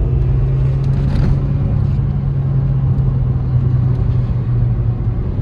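2006 Scion xA's 1.5-litre 1NZ-FE four-cylinder engine running steadily while the car is driven, heard from inside the cabin together with road noise. It runs evenly, without misfire, after a faulty ignition coil was replaced.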